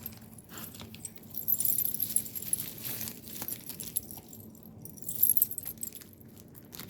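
Packaging being handled and unwrapped, in short bursts of bright rustling and light jingling, about a second and a half in and again around five seconds.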